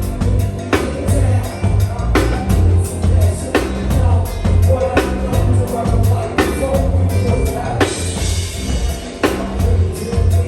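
Live go-go band playing a bounce-beat groove: drum kit and heavy bass, with some singing over it. There is a strong accent about every second and a half and a cymbal wash near the end.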